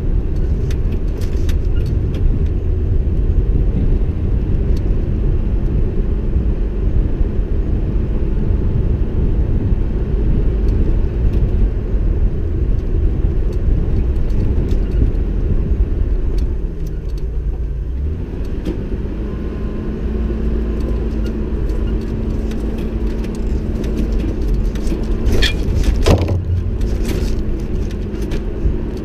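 Vehicle driving on a rough dirt road: steady low engine and tyre rumble with scattered rattles and knocks from the bumps. Midway the rumble eases briefly and a steady engine note comes through, and a sharper knock stands out near the end.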